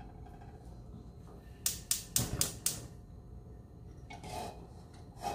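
Gas stove burner igniter clicking, a quick run of about five sharp clicks lasting about a second, a couple of seconds in. Fainter knocks follow near the end.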